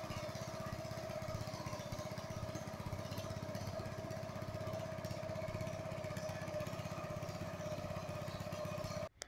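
Small boat engine running steadily under way, a fast even putter with a held droning tone above it; it cuts off abruptly near the end.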